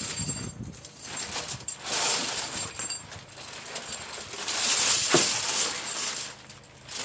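A bundle of steel Bridger 330 body-grip traps clinking and rattling against each other as they are lifted and carried, with plastic wrapping crinkling; loudest about five seconds in.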